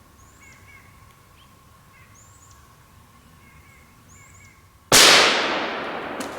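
A single .17 HMR rimfire rifle shot about five seconds in: a sharp, loud crack whose echo fades away over the next second and more. Before it, faint bird chirps.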